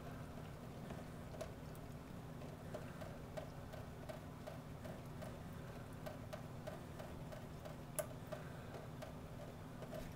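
A kitten lapping water from a thin stream trickling out of a kitchen faucet: quick, even laps, about three to four a second, with a sharper click about eight seconds in.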